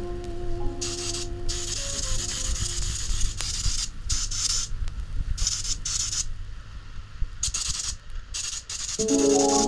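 Paint spray gun hissing in repeated short bursts with brief gaps between them, as the trigger is pulled and released while painting table tops. Background music fades out in the first two seconds and comes back near the end.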